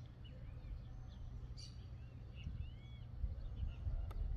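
Wind buffeting the microphone in a steady low rumble, with small birds giving short chirping calls several times.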